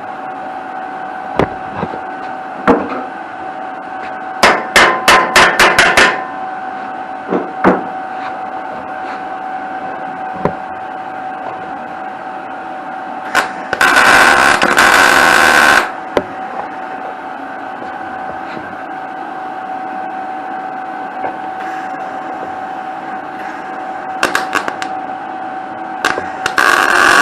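Arc welder tacking steel: a quick run of about eight hammer blows on metal, scattered single knocks, then a dense crackling arc lasting about two seconds midway, and a second short burst of arc crackle near the end, over a steady hum.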